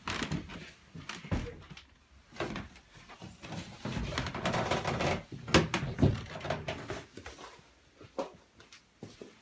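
Scuffling, rustling and irregular knocks against a wooden floor and a door, with a sharp knock about five and a half seconds in.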